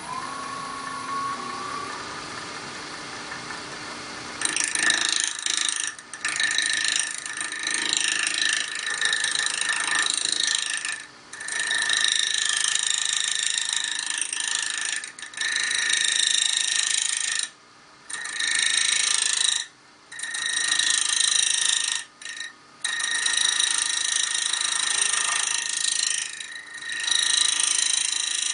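Wood lathe running, then a square-edged box scraper cutting into a piece of bone spinning on it, rounding it into a cylinder: a harsh scraping with a steady high-pitched tone in it. It starts about four seconds in and comes in passes of a few seconds, broken by short pauses where the tool lifts off.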